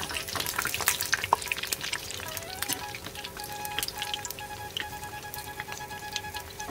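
Breadfruit bondas deep-frying in hot oil in an iron kadai, a dense sizzle and crackle of popping bubbles, heaviest in the first two seconds and then settling softer, as a slotted spoon stirs them.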